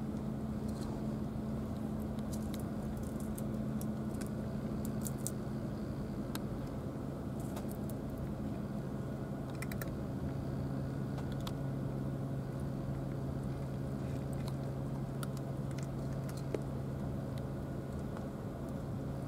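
A cat crunching dry kibble, heard as scattered small crisp clicks, over a steady low mechanical hum like an idling engine.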